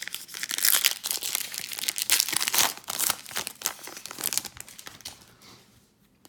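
A trading card pack's wrapper being torn open and crinkled in the hands, a dense crackling for about four and a half seconds that then dies away.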